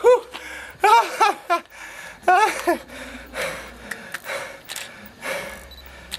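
A man's short, strained vocal gasps: one at the start, three quick ones about a second in and two more shortly after, each rising and falling in pitch. These are followed by softer heavy breaths, the effort sounds of holding up a catfish of over 40 kg.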